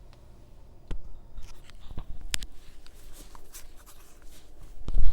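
Scratchy rubbing and light clicks of hands and tools working at a repair bench, with a single click about a second in and two heavier thumps near the end, over a low steady hum.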